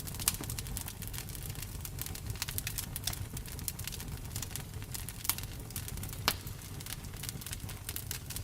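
Campfire crackling: a dense run of small pops and snaps over a low steady rumble, with a few sharper, louder pops.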